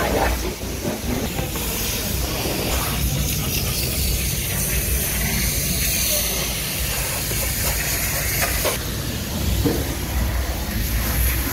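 Wash mitt scrubbing a foam-covered car's bodywork and tyre with wet swishing strokes, over a steady hiss and low rumble.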